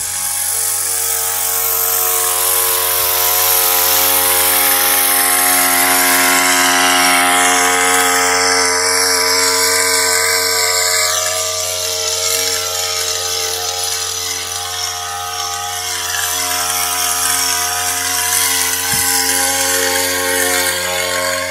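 Motor-driven high-pressure agricultural spray pump running steadily, with the hiss of the spray, stronger in the first half.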